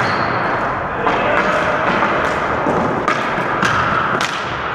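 Ball hockey in play: sticks clacking and tapping on the ball and the wooden gym floor, many sharp knocks and thuds coming irregularly.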